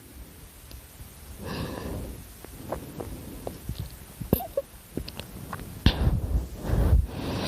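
A sleeping dog breathing noisily and snoring softly: a long breath about a second and a half in, a few small clicks, then louder breaths near the end.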